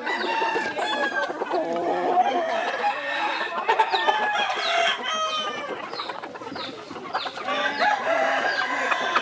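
Backyard chickens and roosters calling, many short calls overlapping one another.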